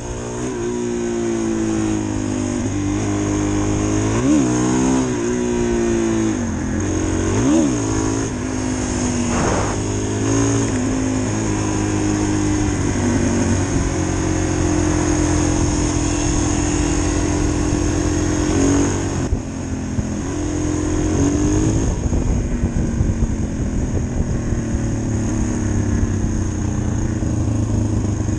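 Single-cylinder dual-sport motorcycle engine under way, revving up and dropping back several times in the first ten seconds, then pulling at a steadier pitch, with one more rev about two-thirds of the way through.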